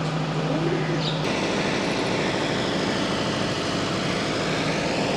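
An engine running steadily. A steady hum drops out about a second in, leaving a denser, noisier running sound.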